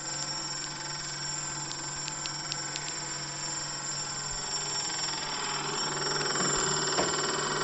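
A steady mechanical hum with a high-pitched whine over it, and a few faint ticks in the first three seconds; it grows louder about six seconds in.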